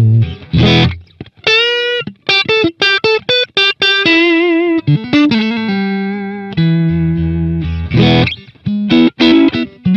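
Electric guitar played through a Boss Katana 100 amplifier with its booster switched off. It plays a lead phrase of single picked notes with vibrato, with strummed chords near the start and again about eight seconds in, and one note held for about two seconds in the second half.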